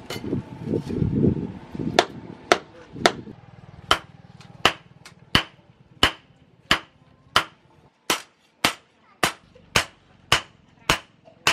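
Hand hammer striking red-hot chainsaw-bar steel on a steel post anvil while forging a knife blade. The blows are even and sharp, about one and a half per second, each with a short ring.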